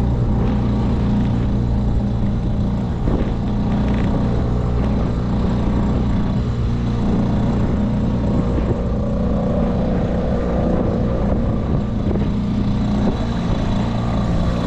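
Petrol outboard motor running steadily, pushing the boat along under way.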